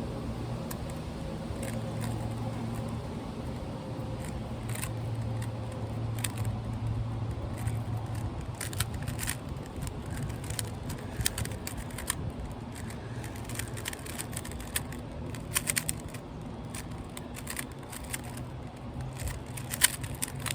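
Rubik's cube being turned fast in a speedsolve: rapid plastic clicks and clacks of the layers turning, coming more thickly in the second half. A steady low rumble of wind on the microphone runs underneath.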